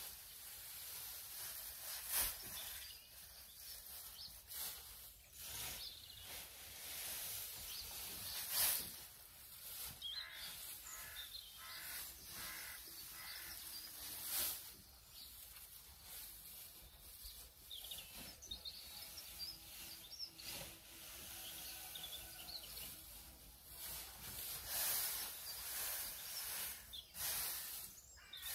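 Dry straw rustling and swishing as it is tossed and spread with a pitchfork, in irregular scoops and shakes, with birds chirping now and then in the background.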